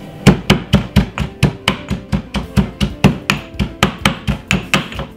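Pestle pounding spring onion, thyme and garlic in a mortar, a steady run of strikes at about four a second, crushing the herbs into a seasoning paste.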